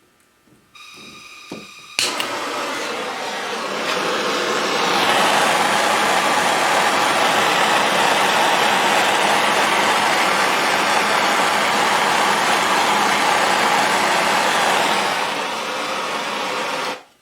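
Steady loud rushing noise of the heat tool shrinking heat shrink tubing over a crimped cable lug. It starts with a brief whistle, comes on suddenly about two seconds in, swells slightly and then cuts off abruptly near the end.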